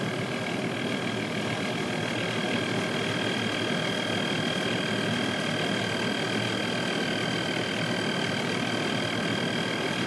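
Steady mechanical running noise with a constant high whine from a firing gas furnace and the combustion checker's sampling pump drawing flue gas through its hose.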